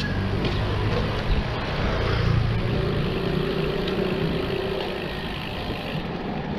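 Street traffic: motor vehicles running nearby over a steady low rumble of road noise.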